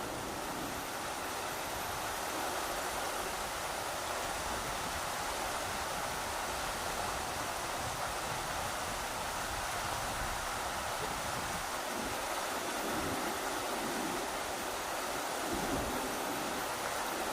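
Rushing river water, a steady, even rush, with irregular low rumbles of wind gusting over the microphone.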